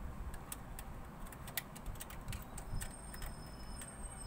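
Irregular light clicks and ticks as small parts are handled inside a PC case, with a faint thin high tone joining about three seconds in.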